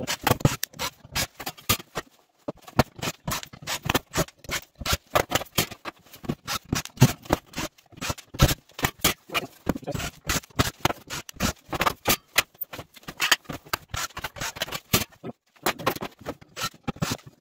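A steel TV modulator casing being handled and taken apart: a dense, irregular run of sharp metal clicks, clinks and scrapes, with brief pauses about two seconds in and near the end.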